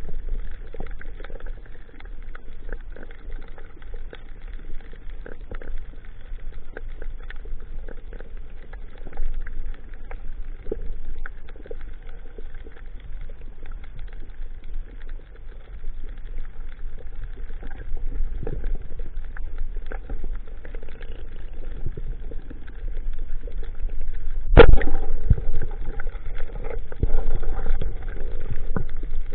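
Underwater sound of a reef dive through a camera housing: a steady low rush of water with scattered faint clicks and crackle. About 25 seconds in comes one sharp, loud snap, the speargun being fired, followed by louder splashy movement.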